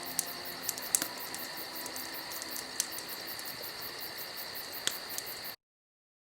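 Crickets trilling steadily at a high pitch, with scattered sharp pops and clicks over it. The sound cuts off suddenly about five and a half seconds in.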